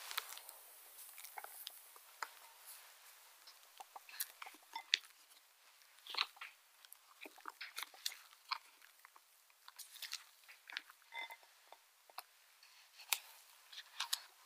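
Whipped egg whites scooped and folded into egg-yolk cake batter with a silicone spatula in a glass bowl: scattered soft, wet clicks and squishes with a few sharper taps.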